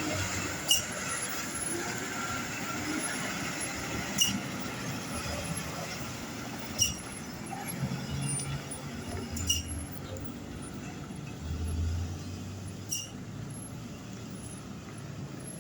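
Heavy diesel trucks passing on a road, their engines rumbling and swelling twice as they go by, over a hiss of traffic. Sharp short clicks come about every three seconds.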